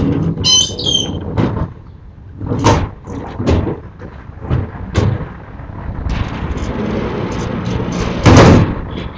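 Sliding storm shutters (amado) being run along their tracks and knocked shut: a series of knocks and rattles, a rumbling slide from about six seconds in, and a loud bang near the end. There is a brief high squeak about half a second in.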